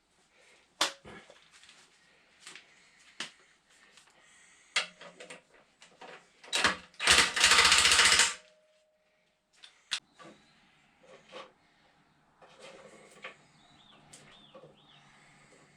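Hand tools on the turbocharger's 17 mm bolts: scattered metallic clicks and knocks of a wrench being fitted and worked, with a loud burst of noise about seven seconds in that lasts over a second.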